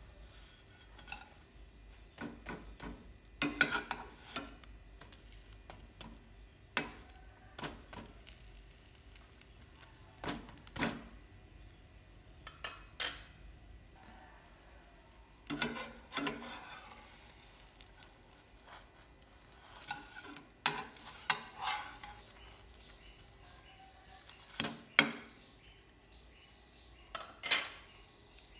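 Egg-and-cheese bread sandwich frying in a nonstick pan with a faint sizzle. A metal spatula and a wooden utensil knock and scrape against the pan at irregular moments as the sandwich is pressed and flipped, the loudest clack coming near the end.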